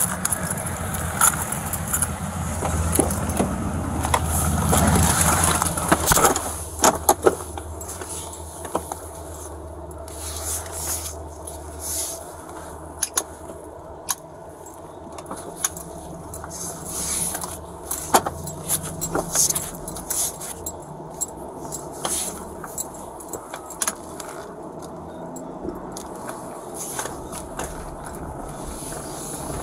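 Rustling of clothing and duty gear right against a body-worn camera as an officer gets into a patrol car, loud for the first six seconds or so. It then settles to quieter rustling while he sits at the wheel, broken by many small clicks and jingles.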